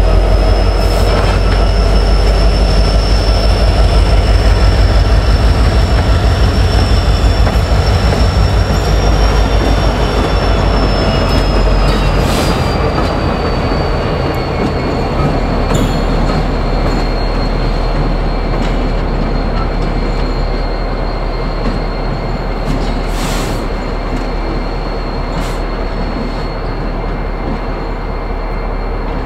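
Freight train rolling slowly past, with a deep rumble and a steady high-pitched wheel squeal. A few sharp metallic clanks come in the second half. The sound slowly fades as the train draws away.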